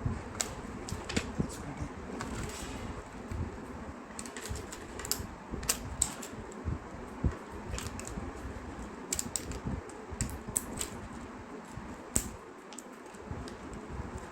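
Handling noise: irregular light clicks and taps of hard plastic as a protective piece is worked off a robot vacuum.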